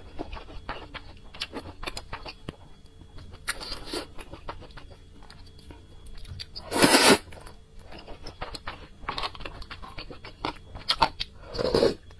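A person eating luosifen rice noodles in spicy broth: soft chewing clicks throughout, broken by noisy slurps. The loudest slurp comes about seven seconds in, and smaller ones come around four seconds and near the end.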